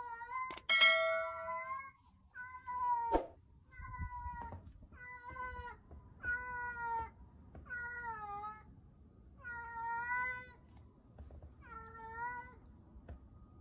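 A female cat in heat giving her mating call: a string of about ten drawn-out meows, one every second or so, each bending in pitch. Sharp knocks come near the start and about three seconds in.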